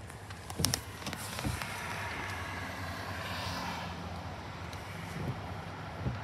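Car engine running with a steady low hum, heard from inside the cabin, with a sharp click under a second in and a dull thump soon after.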